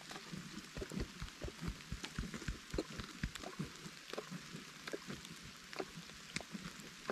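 Raindrops tapping on the camera, heard as irregular soft thumps with light ticks, several a second and thickest in the first half.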